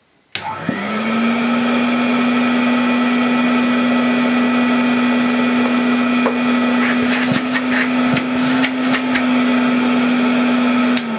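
Vintage metal-bodied Hoover 417G cylinder vacuum cleaner switched on with a click, its motor spinning up within a second to a steady low hum, which the owner thinks sounds like it's running slow. A few light clicks and rattles come about seven to nine seconds in, and near the end the motor is switched off and its pitch starts to fall.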